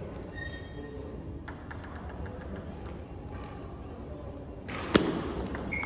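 Table tennis ball strokes: a few faint taps, then a sharp, loud click from the ball about five seconds in as play starts on the serve.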